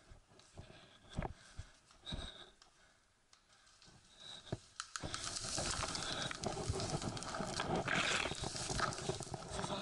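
Footsteps of a person walking on a grassy forest path, separate soft thuds at an uneven pace. About halfway through they give way to a steady rustling and scraping of ferns, brush and clothing as the person gets down and lies in the undergrowth.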